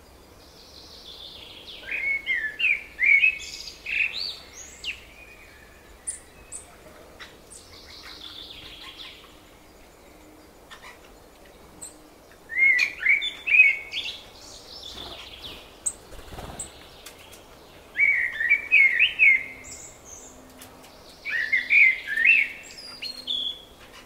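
A songbird singing: four phrases of about two seconds each, each a quick run of varied notes, coming several seconds apart, with a few short high chirps in between.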